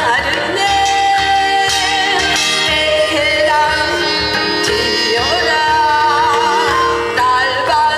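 A woman singing a Korean folk song with wide vibrato into a handheld microphone, over an amplified instrumental backing track with a steady low beat.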